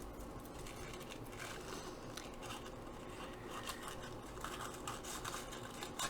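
Scissors cutting apart paper hang tags backed with glued-on tissue paper: quiet, irregular snips and scratchy paper sounds.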